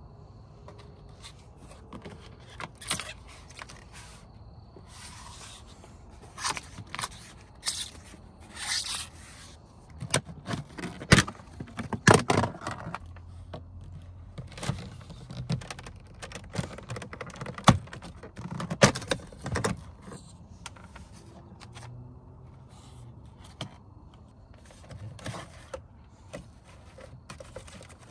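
Plastic dashboard trim on a Mercedes-Benz W166 ML350 being pried loose with a plastic trim tool: scattered scraping, with sharp clicks and snaps as the retaining clips let go, the loudest snaps near the middle.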